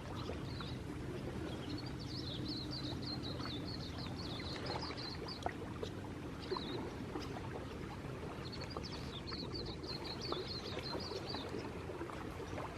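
Outdoor nature ambience: a steady wash of water noise with rapid high-pitched chirping that comes in several runs of a second or more.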